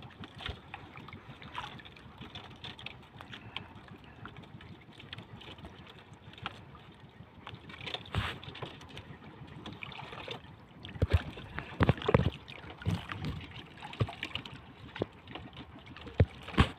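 Fishing handline being hauled in hand over hand on a small boat: scattered knocks and taps, thicker in the second half, over a steady hiss of wind and water.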